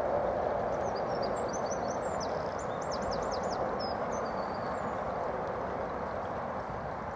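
Shallow, fast-flowing stream rushing steadily over stones. From about a second in, a small songbird sings a short burst of high, quick notes, mostly falling sweeps, that fades out after about four seconds.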